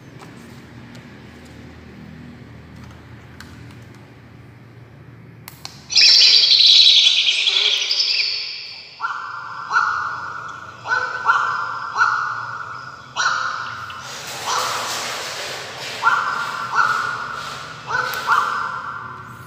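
Recorded bird calls played loudly through a battery-powered hunting speaker (bird caller) switched on by remote about six seconds in. A burst of high chirping comes first, then sharp repeated calls about one a second, each fading away.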